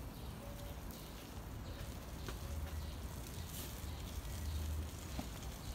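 Quiet outdoor background: a low rumble that swells and fades a few times, with a few faint high ticks.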